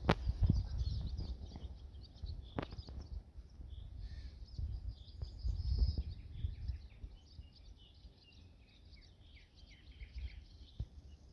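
Small birds chirping and singing in many short, quick notes, over a low rumble on the microphone, with a sharp knock at the start and another about two and a half seconds in.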